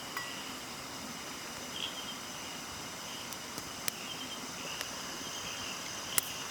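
Steady night chorus of crickets and other insects, a high continuous chirring, broken by a few sharp clicks, the loudest near the end.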